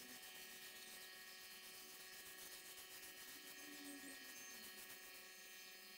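Near silence with a faint, steady hum.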